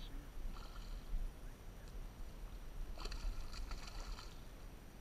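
Water splashing as a hooked smallmouth bass thrashes at the surface beside the boat, strongest about three seconds in, over a low steady rumble.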